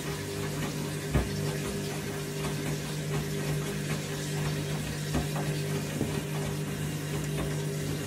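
Front-loading washing machine drum turning a wet load of laundry in water: water sloshing over a steady low hum, with one thump about a second in.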